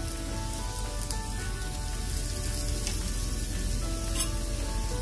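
Beaten eggs sizzling gently in an oiled omelette pan at medium-low heat, a steady frying hiss. Soft background music with held notes plays underneath.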